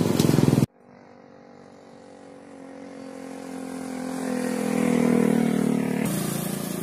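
An engine running at a steady pitch. It cuts out abruptly just under a second in, then swells back gradually, reaching full loudness about five seconds in.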